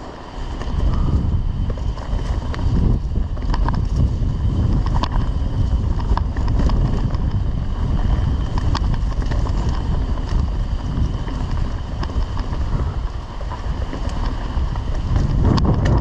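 Mountain bike riding down a dirt singletrack trail: wind rushing over the helmet-camera microphone and the tyres rolling on packed dirt, with scattered clicks and knocks as the bike goes over bumps.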